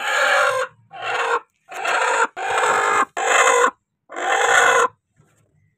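Broody Aseel hen giving six harsh, rasping calls in quick succession, each about half a second long, as a hand is pushed onto her on the nest.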